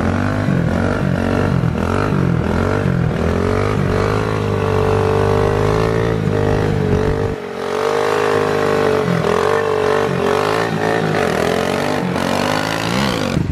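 Kawasaki pit bike's small single-cylinder engine running hard during a wheelie, its pitch rising and falling as the throttle is worked to hold the front wheel up. The sound changes abruptly about halfway through.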